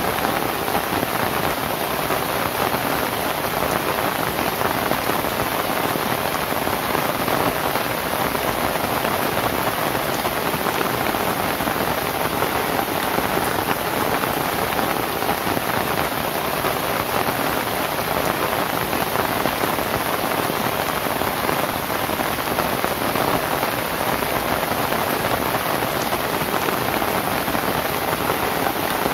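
Steady rain falling on a roof of dried lontar palm-leaf thatch, an even hiss of many drops that does not let up.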